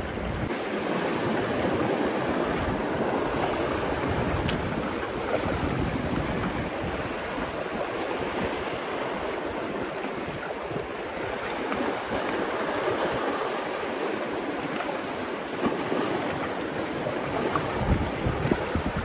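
Sea surf washing steadily on the shore, with wind on the microphone and a gust near the end.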